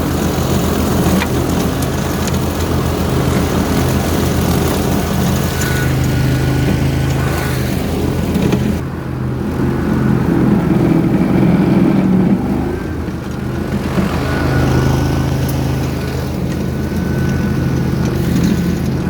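Engine of a grass-mowing machine running steadily under load, with a fast even pulse. The high hiss drops away and the low note grows louder about nine seconds in, then settles again around fourteen seconds.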